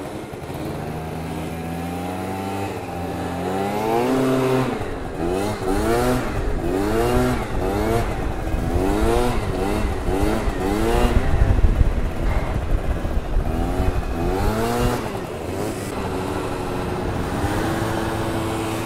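Small two-stroke scooter engines revving hard, their pitch sweeping up and falling back over and over as the throttle is opened and closed.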